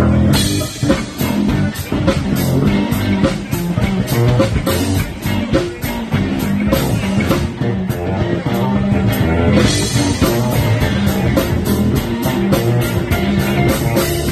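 Electric bass guitar solo played live through an amplifier, with a rock drum kit keeping a steady beat underneath.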